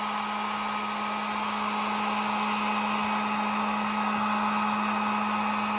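Handheld electric hot-air blower running steadily, a hum and a whine over the rush of air, as it warms the adhesive under a replacement iPhone camera lens cover. It switches off and winds down, falling in pitch, right at the end.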